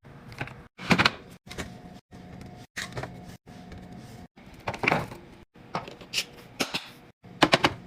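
Containers, bottles and lids being handled and set into a fridge: a string of short clicks, taps and knocks, broken by abrupt cuts between clips.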